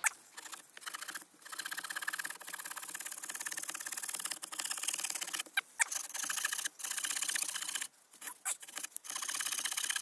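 Small Victorinox pocket-knife saw blade cutting through a thin log: a fast, dry rasping that runs on, with a few short breaks.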